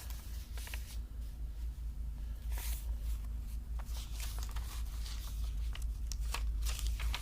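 A sheet of paper being handled, rustled and flipped over on a coloring book, with scattered short rustles and taps over a steady low hum.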